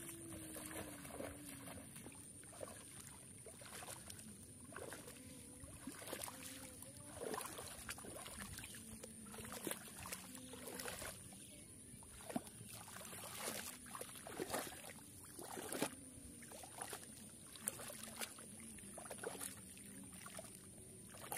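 Shallow muddy water splashing and sloshing in a flooded rice paddy as feet wade through it and hands grope in the mud, in irregular sharp splashes. A steady high-pitched tone sounds throughout.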